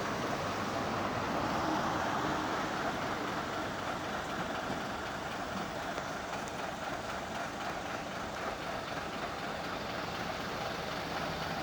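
Road traffic going by: a steady rush of vehicle noise, a little louder in the first two seconds, with no horn sounding.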